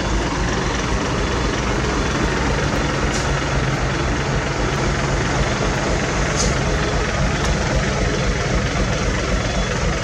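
Diesel engines of asphalt paving equipment running steadily, a continuous heavy engine drone with dense mechanical noise over it.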